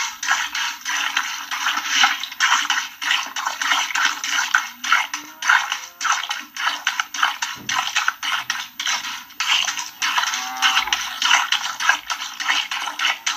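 Milk squirting into a bucket as a cow is milked by hand, a steady rhythm of about four squirts a second, with a cow mooing a couple of times.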